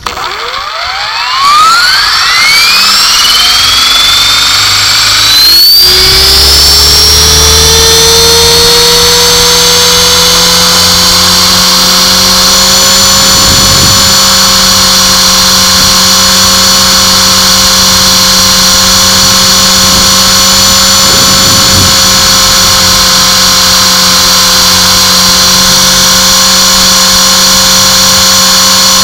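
T-Rex 450 electric RC helicopter spooling up: the motor and gear whine rises steeply in pitch over about six seconds, then holds as a loud, steady high whine at flying speed.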